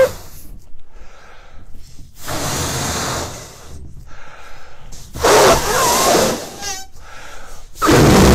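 A person blowing hard into a disposable glove to inflate it like a balloon. There are about three long, strong puffs of breath a couple of seconds apart, with quieter in-breaths between and a few brief squeaks.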